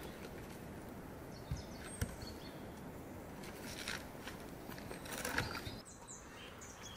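Outdoor ambience with small birds chirping, in short high calls. Two light knocks come about a second and a half and two seconds in, and short bursts of handling noise around four and five seconds.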